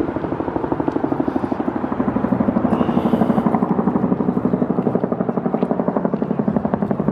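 Firefighting helicopter's rotor thudding overhead in a fast, even beat of several pulses a second.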